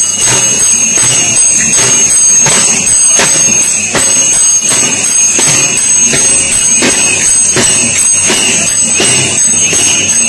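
Improvised drums, plastic barrels beaten with padded sticks, keeping a steady marching rhythm: a strong stroke about every two-thirds of a second with lighter strokes between, over a constant high ringing tone.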